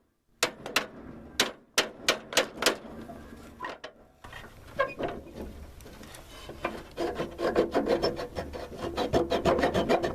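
Wooden blocks knocking and scraping as they are worked out from under a riding mower's deck: a run of sharp knocks in the first three seconds, then a fast rasping scrape from about seven seconds on.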